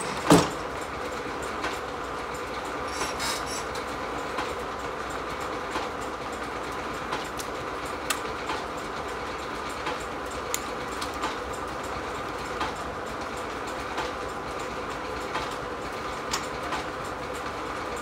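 Steam-powered sawmill running between cuts, the circular saw spinning freely with a steady hum. A loud knock just after the start as a cut slab is dropped off the log, then scattered light clanks from the carriage and its levers.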